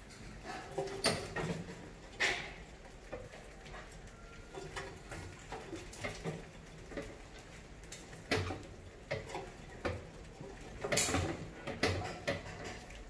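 Mice scrabbling and clambering over a glass tank and a row of rolling aluminium cans: irregular taps, clicks and scratching, with a few sharper knocks scattered through.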